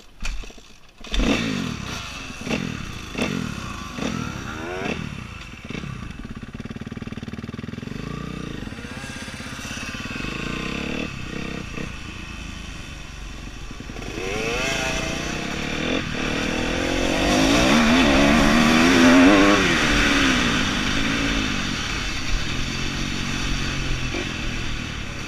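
Motocross bike engine heard from on board, pulling away in a quick series of rising revs as it shifts up, then running up and down in pitch along the track, loudest about two-thirds of the way through.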